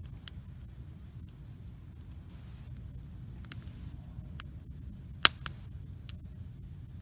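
Wood campfire burning with a low rumble and scattered sharp crackles, the loudest a single pop about five seconds in, followed closely by a smaller one.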